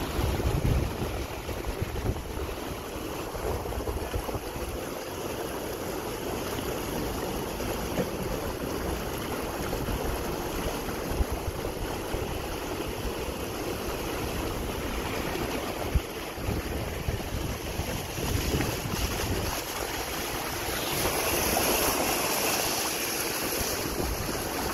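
Car tyres ploughing through shallow floodwater on a street: a steady rush and splash of water thrown up around the car, with road rumble. The water hiss grows louder near the end, and there is one brief knock partway through.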